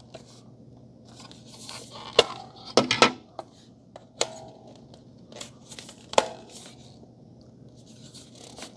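Plastic packaging rustling and crinkling as it is unwrapped, with several sharp clicks and knocks of hard plastic parts being handled.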